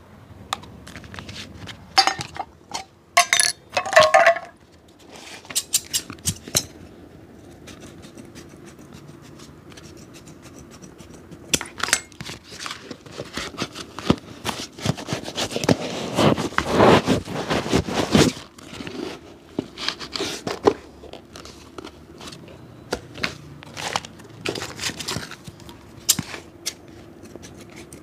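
Hand shoe-repair work on a shoe: scattered sharp clicks and taps of tools against the shoe and its containers, and a few seconds of dense, rapid scraping strokes a little past halfway.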